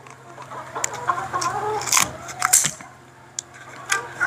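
Chickens clucking, with several sharp snips and cracks of kitchen shears cutting through king crab leg shell, the loudest about two and two and a half seconds in. A low steady hum runs underneath.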